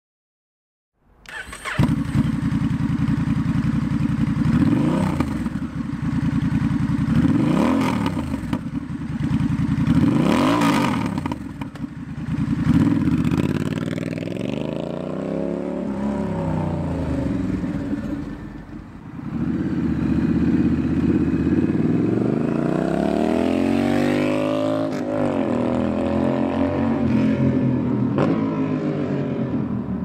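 Honda Rebel 1100's parallel-twin engine through a Two Brothers slip-on exhaust. It comes in about a second in, is blipped three times in quick rises and falls, then pulls away and runs by with slower, longer rises and falls in revs.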